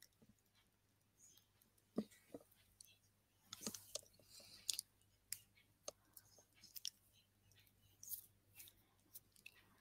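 Near silence broken by faint, scattered clicks of a computer mouse as an answer is selected and an OK button pressed.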